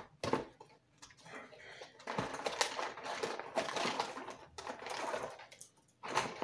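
Rustling and light clattering as a tangled bundle of copper-wire solar string lights and their stakes is handled and pulled out of a cardboard box, in irregular bursts with a short burst near the end.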